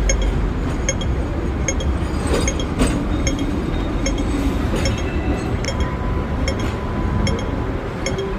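Hong Kong double-decker tram running, a steady low rumble with light metallic clinks repeating two or three times a second from loose fittings and windows shaking.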